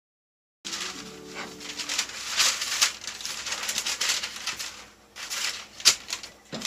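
Silicone spatula scraping and pushing a sticky mozzarella-and-almond-flour dough around a skillet, with parchment paper crinkling as the dough is lifted onto it. The sound begins about half a second in, and a sharp knock of the spatula on the pan comes about six seconds in.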